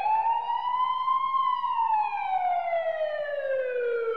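Police siren wail, one slow cycle: the pitch sits at its highest about a second in, then slides steadily down to its lowest at the end.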